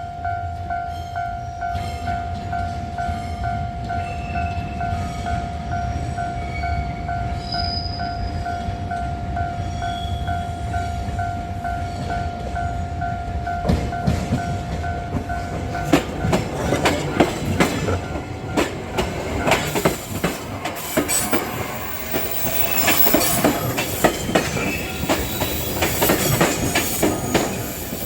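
A level crossing warning bell rings in a fast steady pulse over the rising rumble of an approaching JR commuter train. About halfway in the bell cuts off, and the train passes with its wheels clacking over the rail joints and squealing.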